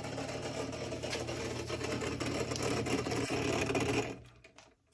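Samsung WF45K6200 front-loading washer making a terrible noise at the start of a cycle: a loud, rapid mechanical rattling and grinding over a steady hum from low in the machine near the drain filter. It stops suddenly about four seconds in, the sign of the cycle failing to start, which the owner thinks happens when water is trying to get into the machine but is not sure.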